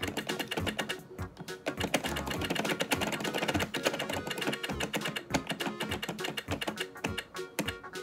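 Rapid, irregular clicking of a toy teaching clock's plastic hands being turned by hand, over background music.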